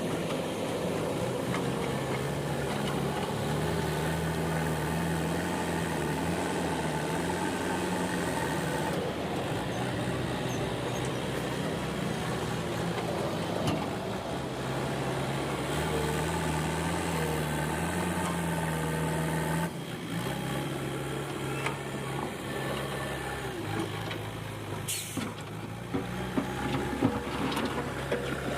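JCB 3DX backhoe loader's diesel engine running under working load, its note rising and falling as the machine levels ground. About two-thirds of the way through the engine drops to a lower note, and a few sharp knocks and clanks follow near the end.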